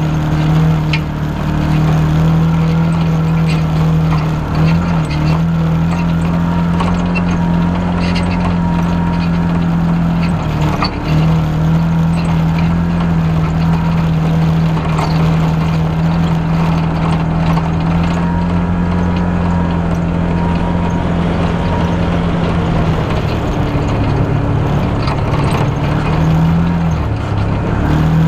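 Off-road vehicle's engine running with a steady drone while driving over a bumpy dirt trail, with scattered knocks and rattles from the bumps. The engine note dips briefly about ten seconds in and drops lower for a few seconds near the end.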